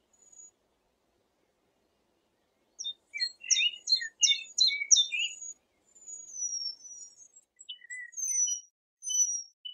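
Eurasian penduline tits calling at their hanging nest: a rapid burst of short chirps about three seconds in, then thin, falling whistles repeated several times with short lower chirps between them.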